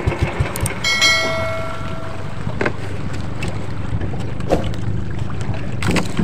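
Motorized outrigger boat's engine running steadily under way, with wind on the microphone. A short bell-like chime sounds about a second in and fades out.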